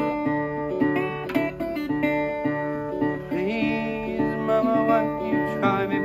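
Metal-bodied resonator guitar fingerpicked, with a steady repeating bass note under ringing treble notes.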